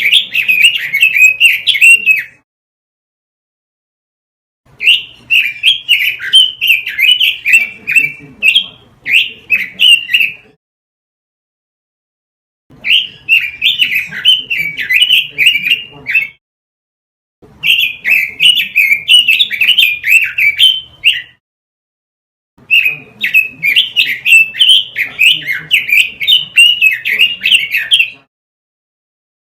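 Pekin robin (red-billed leiothrix) singing: five bouts of rapid, rising and falling warbled whistles, each a few seconds long, separated by short silent gaps.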